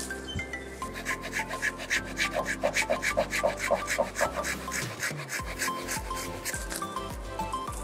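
Small red-handled pruning saw cutting through a branch of a Philippine ficus, a quick back-and-forth rasp of about four or five strokes a second, loudest between about one and four seconds in and fainter after. Background music plays underneath.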